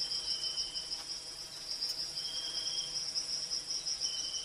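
Forest insects chirring: a steady high-pitched chorus, with a second, slightly lower trill that starts and stops three times.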